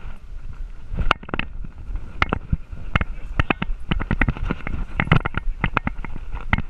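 Irregular knocks and clicks from a GoPro strapped to a running dog, the camera mount jolting with its strides, over a low rumble of movement and wind on the microphone.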